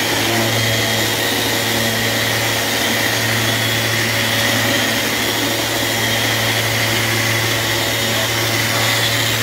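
Festool Rotex RO 150 random-orbital sander running steadily under load, its fine-grit abrasive disc sanding a flat workpiece: a constant motor hum with a steady high whine.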